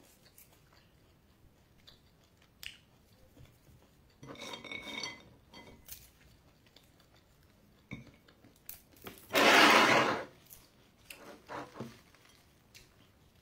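Table eating sounds: scattered light clicks and clinks of ceramic bowls and handled food, with chewing. There are two rustling bursts of about a second each, the louder one about nine seconds in, as a stick of bobolo is handled in its plastic bag.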